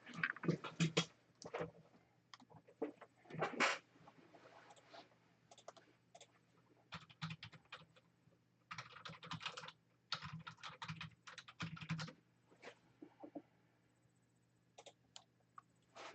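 Computer keyboard being typed on in short bursts of rapid keystrokes, with pauses between the bursts.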